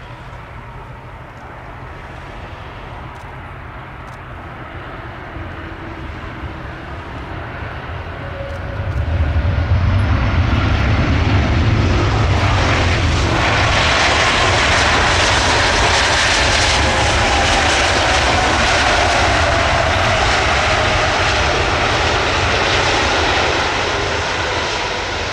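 Airbus Beluga XL's twin Rolls-Royce Trent 700 turbofans during a landing. A steady jet rumble swells to a loud roar about nine seconds in as the aircraft rolls down the runway, with a whine that slowly falls in pitch, then eases off slightly near the end.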